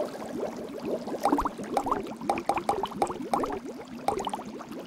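Cartoon underwater bubbling sound effect: a rapid string of short rising bloops, several a second.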